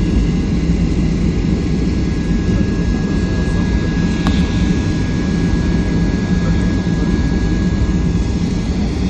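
Steady cabin roar of a Boeing 737-500 in flight, heard from inside the passenger cabin: its CFM56 turbofan engines and the rush of air over the fuselage. A thin, steady whine runs above the roar, and there is one short click about four seconds in.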